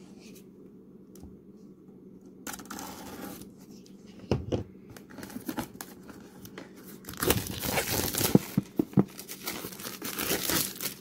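Plastic shrink wrap being torn open and peeled off a cardboard board-game box, crinkling and tearing. It starts a couple of seconds in with a short rip and a few crackles, and the crinkling is dense and loudest over the last few seconds.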